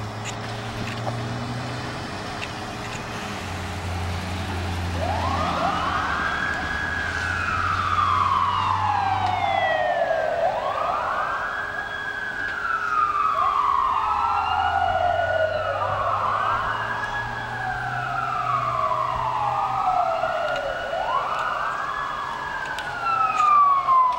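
Fire apparatus sirens wailing as a fire engine and a battalion chief's SUV respond: two sirens overlap, each wail rising quickly and then falling slowly, starting about five seconds in. A diesel fire engine's engine rumbles underneath, and the microphone is knocked about near the end.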